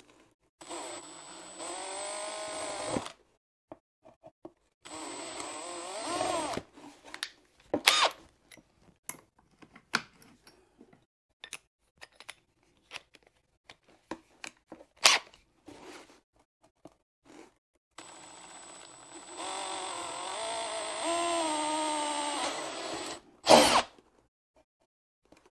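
Handheld electric drill boring a hole in three short runs, stepping up through bit sizes, its pitch wavering as the bit bites. A few sharp knocks fall between the runs, the loudest just after the last run.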